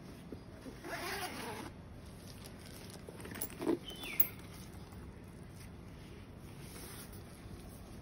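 A zipper on a fabric Victorinox cutlery bag pulled about a second in, lasting most of a second. Around three and a half seconds in there is a short sharp handling knock and a brief falling squeak, then only light rustling of the bag being turned over.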